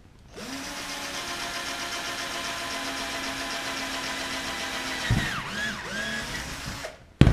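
Cordless drill with a 3.2 mm bit drilling through an aluminium rib and tube, its motor running at a steady pitch for about five seconds. The pitch then dips and wavers as the load changes, and a sharp knock comes just before the end.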